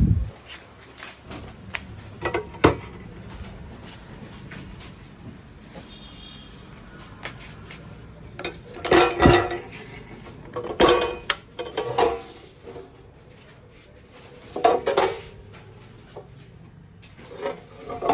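Intermittent clatter and knocks of hard parts and packaging being handled, in several separate bursts with quieter gaps between.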